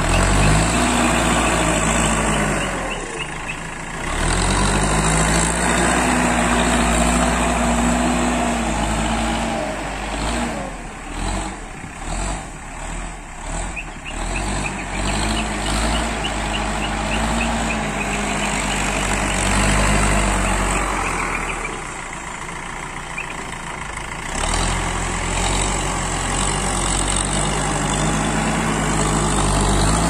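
Backhoe loader's Kirloskar diesel engine running under load as the front bucket pushes and scoops soil. Its pitch rises and falls as the engine is revved and eased, with a few short dips in level.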